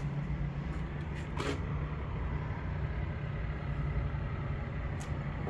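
Steady low hum of road traffic heard from outdoors, with a couple of faint clicks about a second and a half in and near the end.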